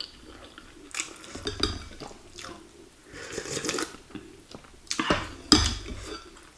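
Metal spoon and fork clinking and scraping against a ceramic soup bowl, several sharp clicks, with a slurp of broth from the spoon about three seconds in.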